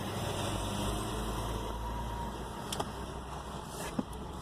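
2001 Toyota Corolla's four-cylinder engine running, heard from inside the cabin as a steady low rumble, with two short sharp clicks about three and four seconds in.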